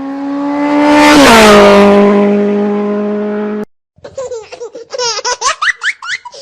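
A vehicle engine passing by at speed: a steady pitched drone swells, drops in pitch as it passes and cuts off suddenly. After a brief gap, a young child laughs in quick high squeals.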